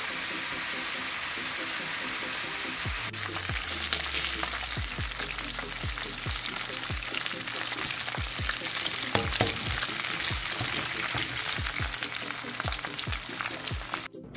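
Flour-coated chicken wings deep-frying in hot oil: a steady, crackling sizzle of bubbling grease. Background music with a regular low beat comes in under it about three seconds in, and the sizzle cuts off just before the end.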